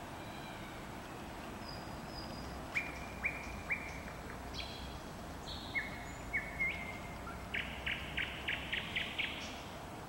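A songbird singing a varied night song: three sharp falling notes about three seconds in, then scattered whistles, and a fast run of about seven repeated notes near the end, over a steady low background hum.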